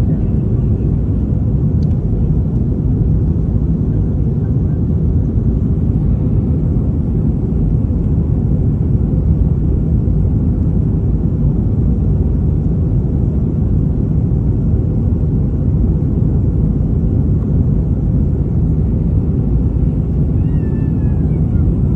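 Steady low rumble of airliner cabin noise: engines and rushing air heard from inside the cabin at a window seat.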